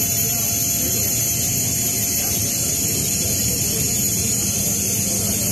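Steady jet-turbine whine and rush of a military transport aircraft, heard from inside its cargo hold. It is loud and unbroken, with high, even tones over a constant rush.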